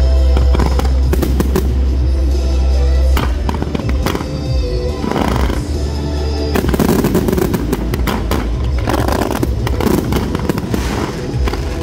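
A fireworks display set to music: firework shells bursting and crackling over loud music with a steady deep bass, the bangs and crackles coming thicker from about halfway through.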